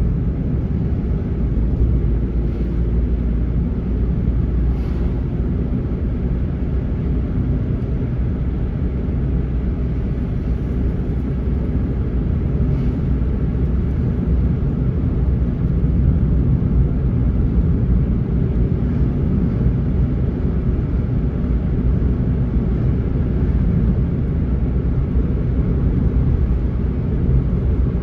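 Steady low road rumble inside a moving car's cabin: tyre and engine noise while driving at a steady speed.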